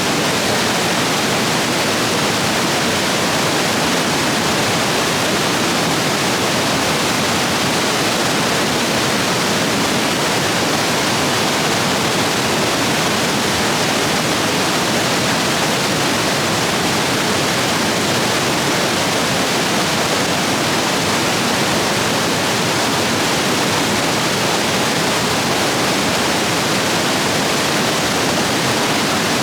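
Rapids rushing in a stream swollen by heavy rain: a loud, steady roar of white water with no breaks.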